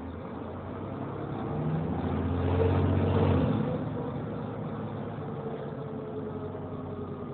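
Volvo B7TL double-decker bus's diesel engine heard from inside the passenger saloon, building up under acceleration to its loudest about three seconds in, then easing off fairly suddenly and running on more quietly.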